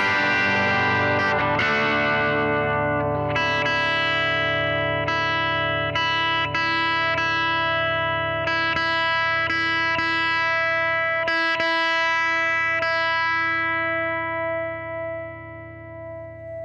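Electric guitar played through a Marshall SV20C valve combo with some overdrive: chords and picked notes ringing out, a fresh chord struck about three seconds in, fading away over the last few seconds.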